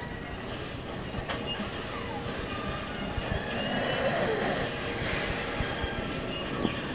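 A man snoring in his sleep, with a noisy breath that swells in loudness about halfway through.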